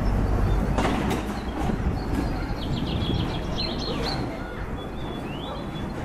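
Outdoor street ambience: a steady rushing background noise, a little louder in the first second or two, with small birds chirping several times in the middle.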